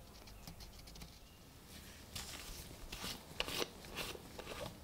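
Gloved hands twisting the cap of a small glass bottle, a series of short scraping, grating twists, loudest about three and a half seconds in. Before that come a few faint scratches of a wooden toothpick picking at a coin.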